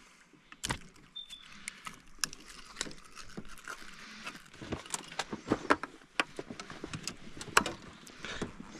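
Irregular metallic clicks and rattles of long-nose pliers at work unhooking a small fish, with handling noise.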